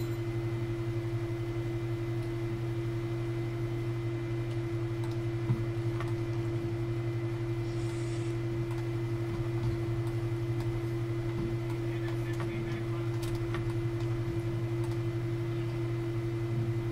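Steady low electrical hum, with scattered faint clicks of a computer keyboard and mouse.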